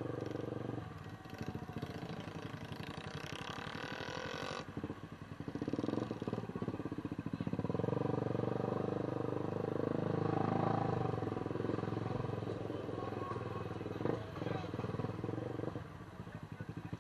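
A small engine running with a rapid, even pulse that swells and eases in level. A hiss over it cuts off suddenly about five seconds in.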